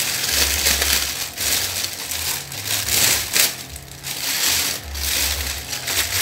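Clear plastic wrapping film crinkling and rustling as it is handled and pulled off a ring light, in repeated bursts with brief pauses.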